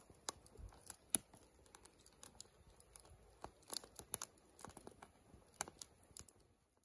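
Wood campfire crackling, with faint, irregular sharp snaps from the burning logs that thin out near the end.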